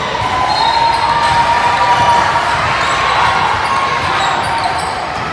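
Basketball being dribbled on a hardwood gym court during play, with short high shoe squeaks and the general noise of the gym hall.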